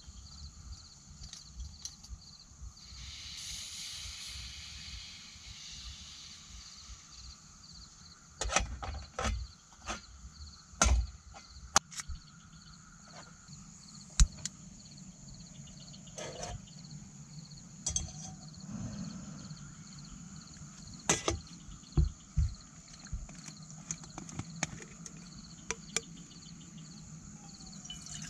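Crickets chirping steadily, with a brief hiss of gas a few seconds in as a small backpacking stove is threaded onto its gas canister. Scattered knocks and clicks follow from the stove, canister and lighter being handled on a metal camp table.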